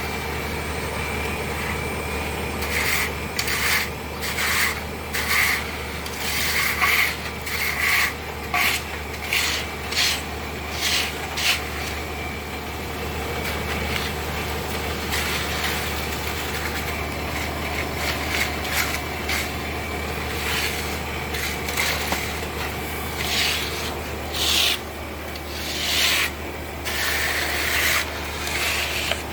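Trowel scraping across wet cement while it is smoothed out, in repeated short strokes that come thick for the first dozen seconds, ease off, and return near the end. A steady low hum runs underneath.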